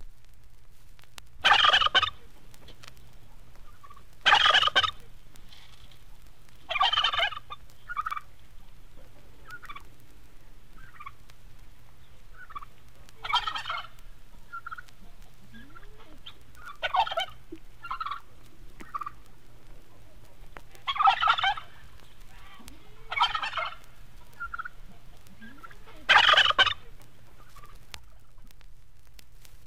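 Turkeys gobbling: about eight loud, rattling gobbles a few seconds apart, with softer short calls between them.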